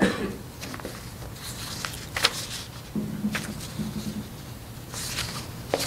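Paper rustling and crinkling in short bursts as sheets of poems are handled and sorted, with a brief low voice-like hum about three seconds in.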